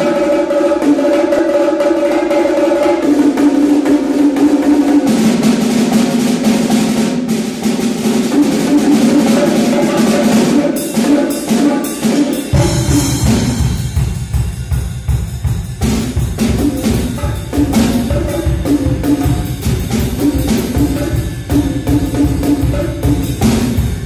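Solo percussion piece on drums: rolls on small high-tuned drums ring at a steady pitch, which drops lower about five seconds in. About halfway through, a low drum comes in with a fast pulse under sharp strokes on the higher drums.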